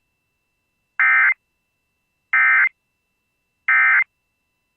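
Emergency Alert System end-of-message code: three short, identical bursts of buzzy digital data tones about a second and a half apart, the signal that closes the alert.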